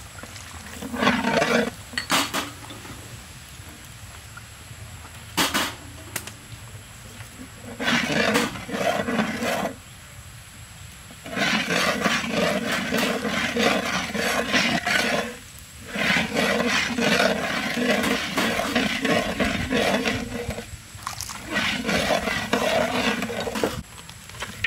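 Metal spatula scraping around a metal wok as curry paste is stirred and fried in oil: quick back-and-forth scraping strokes in several bursts of a few seconds each, with short pauses between.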